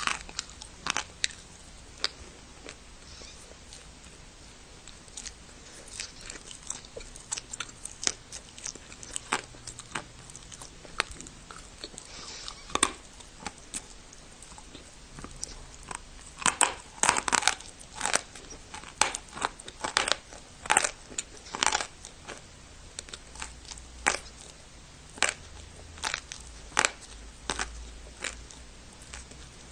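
A person biting and chewing dry clay: a pressed turbah prayer-clay tablet. Crisp crunches come in irregular runs, thickest a little past halfway.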